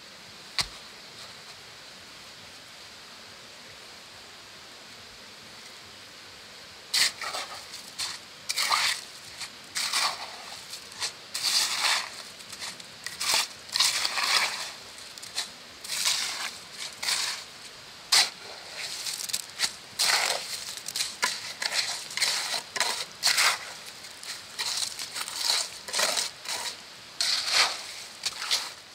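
A steel mason's trowel scraping, scooping and spreading wet, gritty concrete, in irregular strokes about one or two a second. The strokes begin about a quarter of the way in, after a stretch of only steady background hiss.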